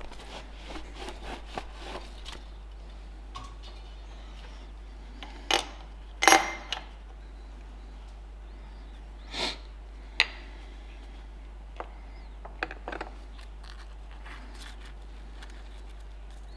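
Metal bar being handled and set into a steel machine vise on the milling machine: a series of separate metal clinks and knocks, the loudest about six seconds in.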